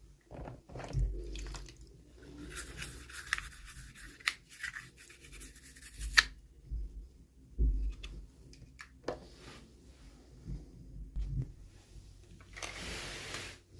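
Hands handling and opening toy packaging: scraping and rustling with scattered clicks and knocks, and a second-long rush of noise near the end.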